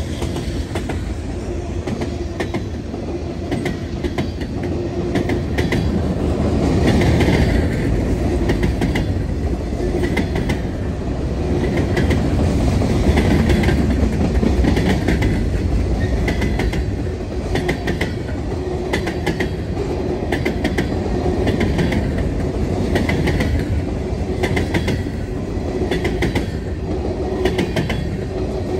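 Freight train cars, covered hoppers and tank cars, rolling past steadily on jointed track. A constant rumble is broken every second or two by short clusters of clickety-clack as the wheel trucks pass over the rail joints.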